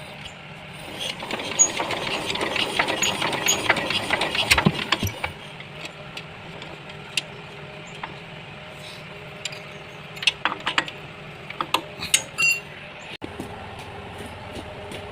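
Metal clattering and clinking, like tools and engine parts being handled. A dense rattle starts about a second in and lasts about four seconds, then a few scattered clinks follow, over a steady low hum.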